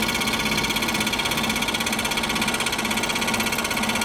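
Scroll saw running, its reciprocating blade cutting a straight line through a thin sheet workpiece: a steady, fast, even chatter.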